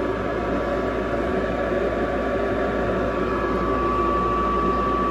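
The newly installed draft inducer motor on a Rheem gas furnace, running steadily at start-up, with a steady high whine that grows stronger near the end.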